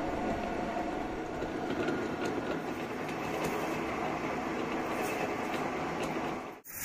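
A metal lathe running while a rotating cutter mills teeth into a metal gear blank: a steady mechanical running noise with scattered small ticks. It cuts off abruptly near the end.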